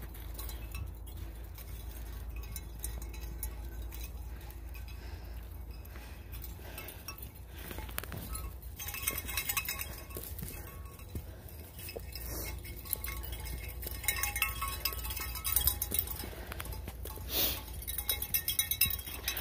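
Footsteps crunching on a trail of dry fallen leaves, with light metallic jingling and clinking that comes in short irregular bursts, busiest in the second half, over a steady low rumble.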